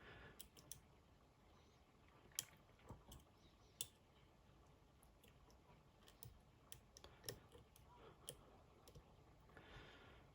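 Faint, irregular small metal clicks and ticks of a pick tool working the sliders inside an Assa Desmo cam lock, about a dozen scattered through the stretch.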